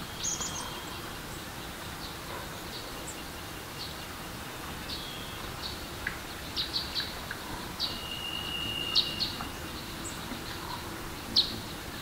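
Forest birds calling in short, high chirps over a steady hiss of running water, with one held whistle about eight seconds in.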